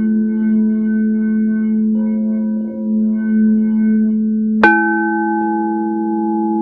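Crystal singing bowls ringing with a steady, layered hum. About two-thirds of the way in, a bowl is struck, and a new, brighter ringing tone joins and sustains.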